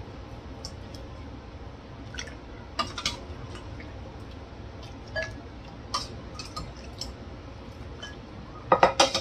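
Ladle scooping soup from a stainless-steel pot into a plastic bowl: scattered light clinks and splashes of broth, with a cluster of louder clatters near the end, over a steady low hum.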